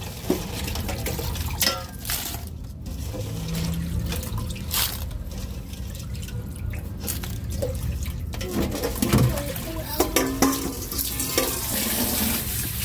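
Water splashing and trickling, with scattered sharp clicks and knocks, several of them close together near the end.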